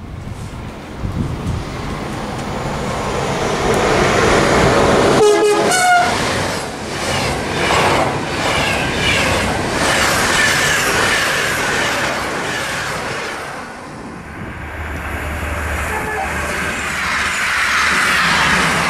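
Electric passenger train passing at speed close by. It gives a short blast on its horn, with a change of pitch, about five seconds in. Then come the loud rush of air and wheel noise on the rails as the coaches go by.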